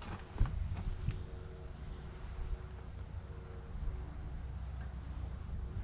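Insects chirping in a steady, high, evenly pulsed chorus, with a few light knocks in the first second.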